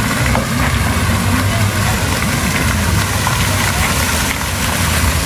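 Steady splashing of a park fountain's water, with a low rumble underneath.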